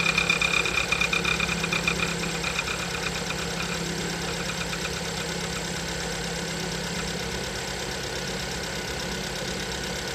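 VW 1.6 MPI (CWVB) four-cylinder petrol engine idling with a fast, even ticking, the extraneous noise the owner has noticed at 6,000 km. It is louder for the first two or three seconds, with a high ringing note that fades, then settles to a steady idle.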